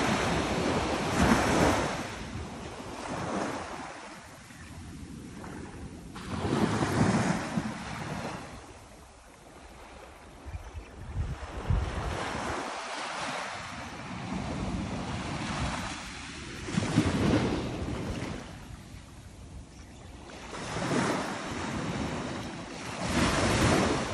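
Ocean surf breaking and washing up a sandy beach in repeated swells every few seconds, with wind buffeting the microphone.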